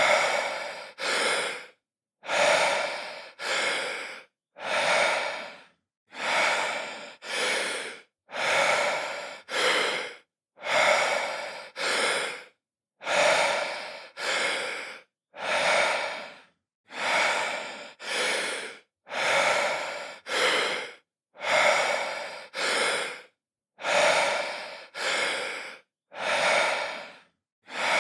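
A man breathing deeply and audibly through the airway: a breathy inhale followed at once by an exhale, the pair repeating about every two and a half seconds with a short silence between breaths.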